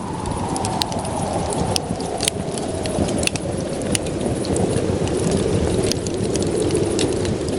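A motor vehicle running, its tone falling slowly in pitch throughout, with scattered sharp clicks.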